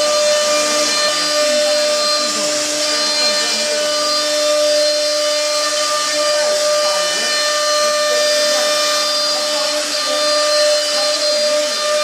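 A machine's motor running steadily, with a constant whine over a hiss.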